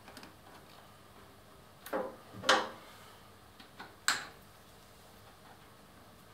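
Plastic cable ties being pulled tight around a cable, each a short ratcheting zip: two about two seconds in, half a second apart, the second the loudest, and another about four seconds in, with a few faint clicks between.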